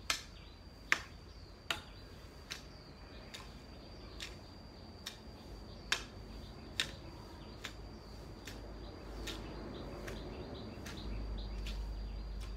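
A hand tool chopping at grass and weeds, giving sharp clicks about once a second with a few louder strikes. Underneath runs a steady high-pitched insect buzz.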